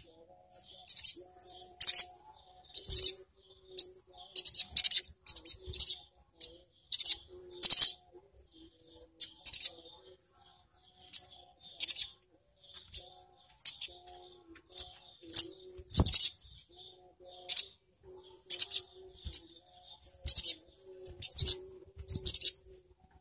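Sogon (sogok ontong) sunbird calling in a caged bird: quick runs of sharp, high-pitched chirps, several a second. There is a single knock about two-thirds of the way through.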